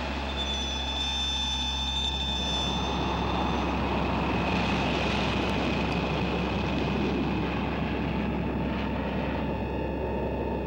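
A steady rushing drone with a constant low hum and several held high tones that fade in and out.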